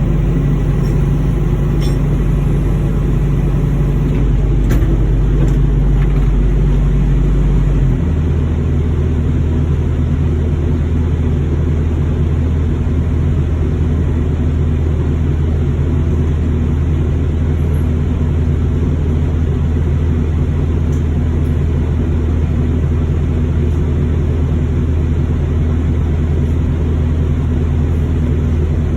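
Steady low drone of running machinery, which steps up to a higher, steady pitch about eight seconds in.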